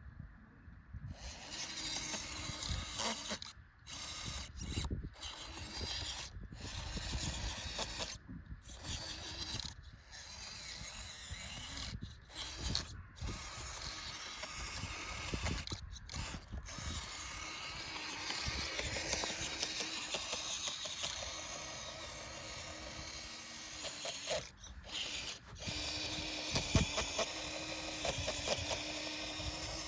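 Vehicle driving over rough ground: continuous rattling and knocking noise with the engine running, the sound dropping out briefly several times, and a steady engine tone near the end.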